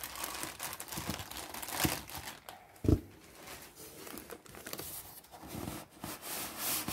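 Clear plastic packaging bag crinkling and rustling as it is handled, with a single dull thump about three seconds in, then lighter rustling.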